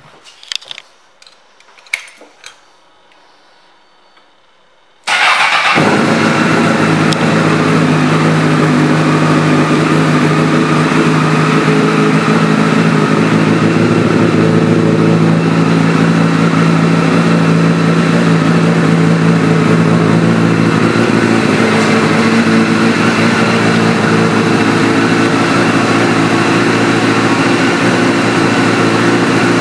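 2004 Honda CBR1000RR's inline-four engine, breathing through a Two Brothers Racing aftermarket exhaust. After a few faint clicks it comes in suddenly about five seconds in and then idles steadily.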